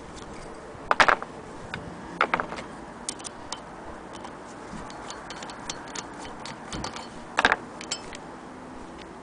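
Sharp metal clicks and small clatters from a screwdriver unscrewing the wooden crank handle from the cast-iron hand wheel of an antique Willcox & Gibbs sewing machine. The loudest rattles come about a second in, a little after two seconds and again about seven and a half seconds in, with lighter ticks between them.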